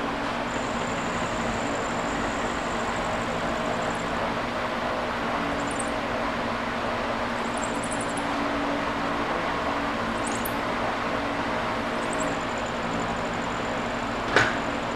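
Vertical milling machine running with a steady mechanical hum and a faint high whine that drops out in the middle; a single sharp click near the end.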